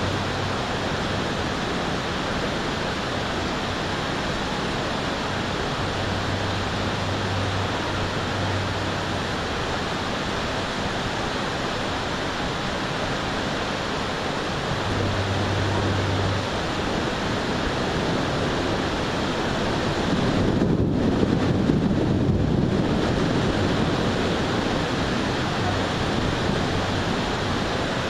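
Thunderstorm: a steady hiss of heavy rain and wind, with a low rumble of thunder that swells about twenty seconds in and dies away over a few seconds.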